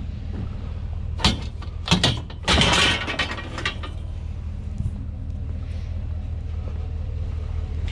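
Scrap being shifted and secured so it won't slide: a few sharp knocks followed by a scrape of about a second, over a steady low rumble.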